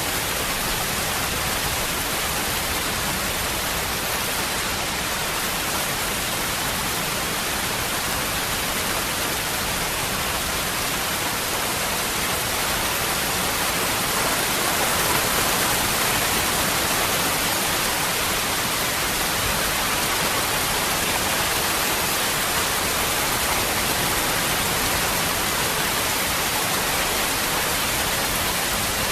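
Waterfall: water falling steadily in an unbroken rush, swelling slightly about halfway through.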